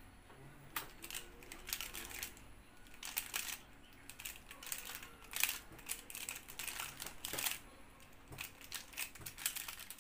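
Square-1 puzzle being turned at speed: quick plastic clicks and clacks of layer turns and slices, in irregular flurries.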